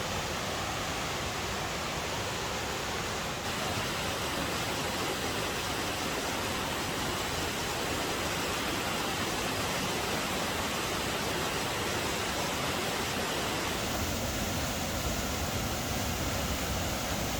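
Cascading waterfall on a mountain river, water rushing in a steady, even noise.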